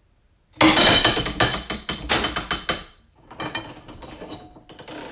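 Pittsburgh Pro 3/8-inch drive ratchet failing under about 215 foot-pounds: about half a second in, a sudden loud burst of rapid metallic clicking and clatter as its internal teeth round off and slip. The clatter fades over about two seconds and gives way to a quieter, uneven clicking.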